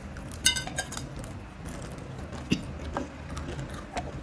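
Bites into dry, crispy Mamee Monster noodle snack, crunching a few times in scattered crackles. About half a second in there is one sharp clink that rings briefly, the loudest sound here.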